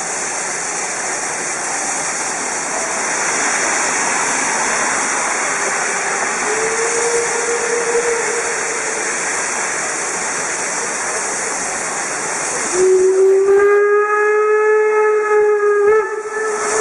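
DR Class 52 steam locomotive hissing steadily as steam vents around its cylinders, then, about thirteen seconds in, sounding its steam whistle in one long blast of some four seconds that rises slightly in pitch.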